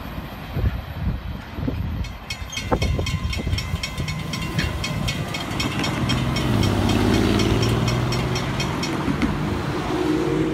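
Railroad grade-crossing bell ringing steadily over the low rumble of a freight train moving away. It stops near the end, while cars drive over the crossing, their engines rising in pitch as they pull away.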